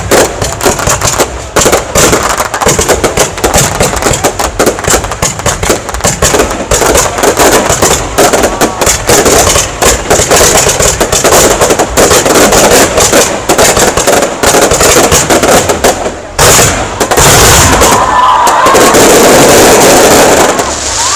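Aerial fireworks display: rapid, overlapping bangs and crackles of bursting shells, with crowd voices underneath. For the last few seconds the separate bangs merge into a steadier, continuous rush of noise.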